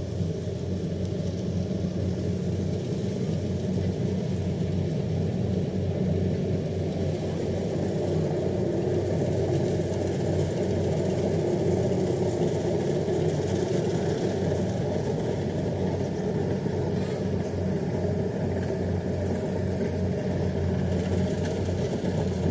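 Crawler rice combine harvester running steadily as it cuts standing rice, a continuous low engine hum.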